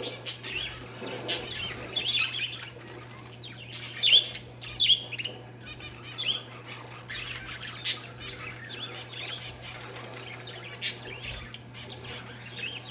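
Parakeets and zebra finches chirping: many short overlapping chirps and tweets, with a few louder sharp calls scattered through, over a steady low hum.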